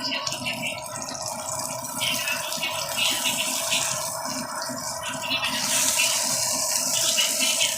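Fish frying in hot oil, a steady sizzle and crackle that grows louder and brighter about five and a half seconds in.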